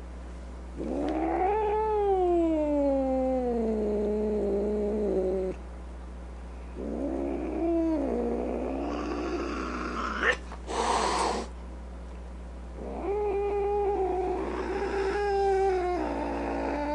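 A domestic cat yowling: four long, drawn-out meows, the first sliding steadily down in pitch over several seconds. About ten seconds in, between the calls, there is a short click and a brief burst of hiss-like noise.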